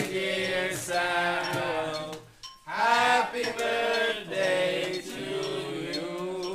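A group of people singing a birthday song together, holding long notes, with a short pause for breath about two and a half seconds in.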